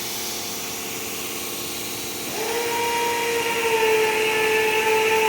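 Hot-air plastic welder hissing steadily. About two seconds in, a steady motor whine comes in and holds.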